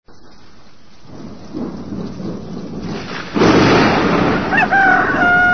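Rain falling in a thunderstorm, with a loud roll of thunder breaking in about three and a half seconds in. Near the end a rooster starts to crow, one short rising note and then a long held note.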